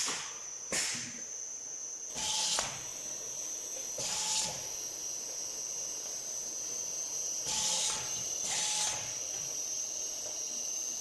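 Automatic bottle-labelling machine running with a steady high whine. Two sharp clicks come near the start, then four short hissing bursts at uneven intervals.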